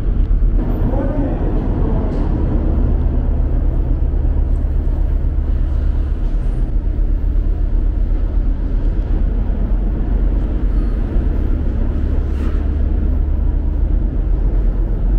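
Steady low drone of a car ferry's engines heard from on board, with no change in pace.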